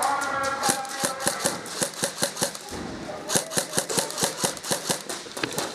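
Airsoft guns firing in a rapid string of sharp cracks, about four or five a second.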